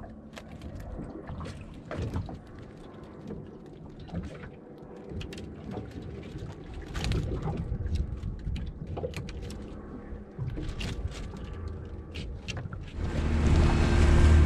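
Knocking and clattering of a wire-mesh fish pot and its wooden frame being hauled up and handled against a wooden boat's side, over a low rumble of water. About thirteen seconds in, a boat engine comes in loud and steady.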